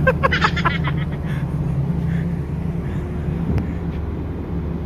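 Steady low hum of a ship's machinery. A short burst of voice or laughter sounds in the first second.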